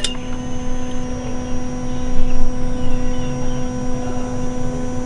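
Steady electric hum at one fixed pitch from a Nissan Navara diesel's engine bay with the ignition switched on and the engine not running, from the newly fitted electric EGR valve, over a low rumble. It starts the moment the key goes to on and is the same key-on sound the truck made before the engine died, taken as a hopeful sign the new valve is working.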